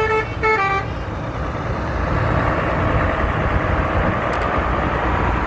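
A multi-tone 'telolet' bus horn plays a quick run of notes stepping down in pitch, followed by a steady low rumble of the running vehicle.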